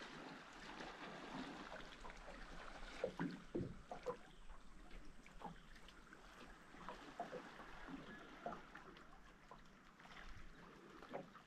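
Faint lapping of water against a small boat's hull, with scattered light clicks and knocks, a few a little louder about three to four seconds in.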